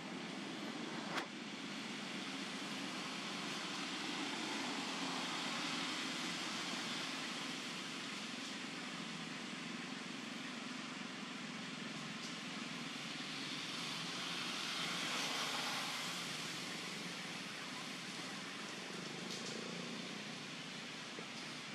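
Steady outdoor ambient noise with no distinct sound standing out; it swells a little about two-thirds of the way through. One short click about a second in.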